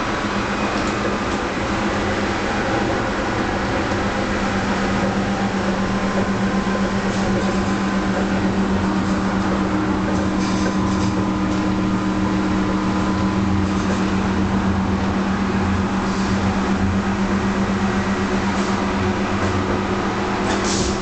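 Tram running along its rails at speed: a steady hum over the rumble of the wheels on the track, with occasional light clicks.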